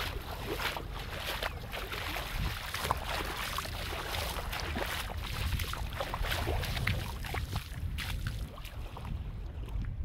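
Wind on the microphone over the splashing of shallow seawater as a person wades barefoot along the beach, with many small, crackling splashes.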